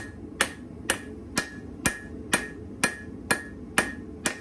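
Hand hammer striking red-hot leaf-spring steel on an anvil, about two blows a second, each blow followed by a short ring. The smith is rounding over the back corner of a knife blank.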